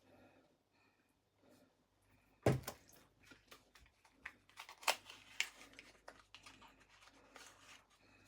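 Kitchen handling noises: one sharp knock about two and a half seconds in, then a scattered run of small clicks and taps as bowls, utensils and colouring bottles are handled.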